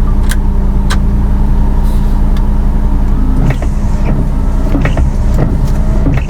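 Perodua Myvi running with a steady mechanical hum while its windscreen washers and wipers are tried out after the hose-connector repair. Sharp clicks and short knocks come over the hum.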